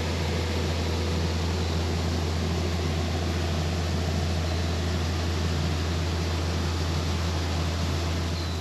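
Case IH combine harvester running steadily, a constant low hum under an even wash of machine noise.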